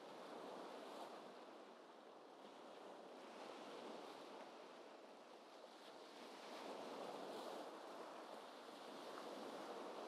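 Faint, gentle ocean waves: a soft, even wash of surf that swells and ebbs every few seconds.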